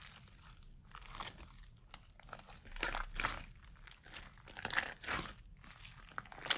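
Clay-mixed slime being squished and stretched by hand, giving bursts of crinkly, crackling noise every second or two, strongest about three and five seconds in.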